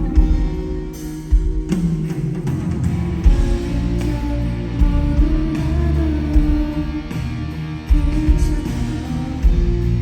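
A live rock band playing a song, with a steady drum beat, bass, guitar and a singing voice.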